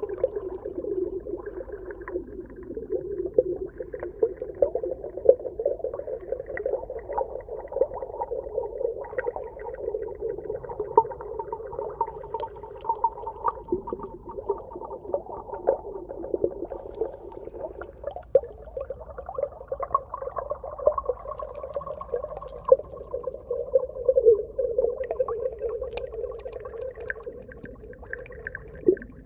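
Underwater ambience: a continuous, wavering, whale-like moan over dense crackling. A fainter, higher moan joins about twenty seconds in.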